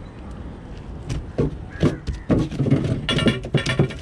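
A freshly caught fish thrashing in a ring-framed keepnet on a wooden boat deck: an irregular run of knocks, slaps and rattles that starts about a second in and grows thick and loud over the last two seconds.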